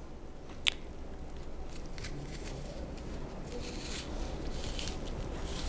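A small knife cutting through a halved raw pear held in the hand, with a sharp click about a second in and a few fainter crisp cuts.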